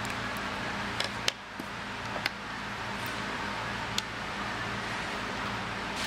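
Steady background hiss with a low hum, with a few sharp small clicks about a second in, near two seconds and again about four seconds in, from handling wires and a plastic wire-marking tool on a wooden bench.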